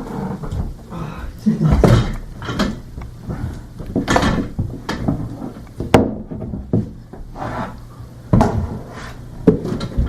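Irregular knocks, bumps and clatter of a chair being moved and things being handled, with a sharp click about six seconds in.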